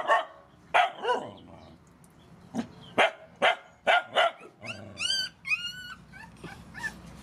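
A dog barking in a run of short, sharp barks, then giving two high whines that rise and fall in pitch about five seconds in.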